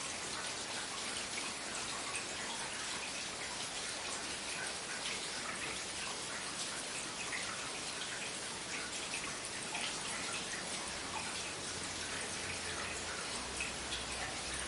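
Steady rain falling, with many small drops pattering and dripping on hard surfaces. A low rumble comes in near the end, under the rain.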